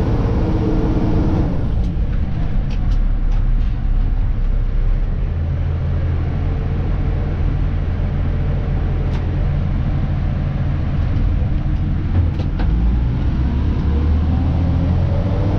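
Diesel engine of a Dennis Elite 2 refuse truck heard from the cab: a rising whine as it pulls away that ends about a second and a half in, then a steady low drone with a few light clicks, and a rising whine again near the end as it accelerates.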